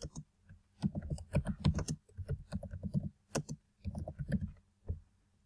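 Typing on a computer keyboard: an uneven run of keystroke clicks with short gaps, stopping shortly before the end.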